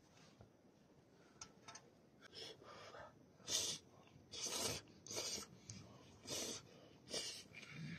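A man slurping steaming-hot noodles off chopsticks: five short, sharp slurps with breaths between, starting about three and a half seconds in.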